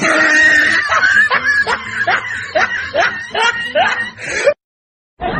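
High-pitched snickering laughter: a run of short rising squeals, about two a second, that cuts off abruptly about four and a half seconds in.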